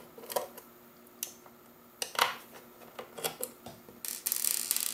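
Small clicks and taps as a screwdriver and fingers work screws out of a Roomba's circuit board. About four seconds in comes a denser metallic rattle of small screws being dropped onto the table.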